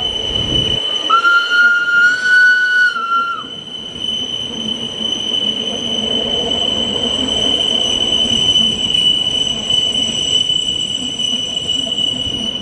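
Steel wheels of a Rhaetian Railway metre-gauge train squealing against the rails as the coaches roll through a curve: one steady high-pitched squeal over the rumble of the wheels. A second, lower squeal rises slightly for about two seconds near the start.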